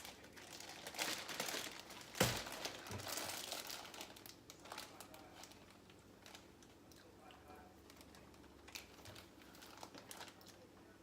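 Plastic packaging crinkling as sliced deli turkey is handled, with a sharp knock about two seconds in; after that the handling is quieter, with a few light clicks.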